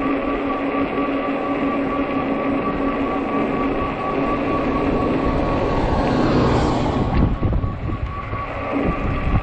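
Fat-tire e-bike riding into strong wind: heavy wind noise on the microphone and tire rumble, with a steady whine from the bike's 48 V motor. The wind noise swells louder about two thirds of the way through, then eases.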